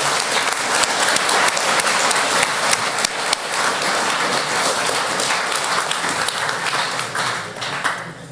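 Audience applauding: a dense, steady round of clapping that thins out and dies away near the end.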